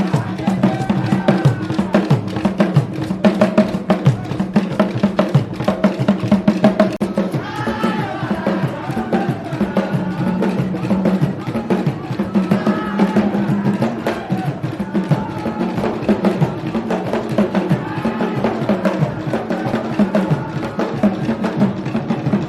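Music driven by fast, dense drumming and sharp clacking percussion, with a voice singing over it at times.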